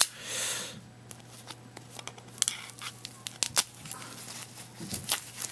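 Plastic wrapping being torn and pulled off a lock by hand: a short hissy rip at the start, then scattered crinkles and crackles of the plastic.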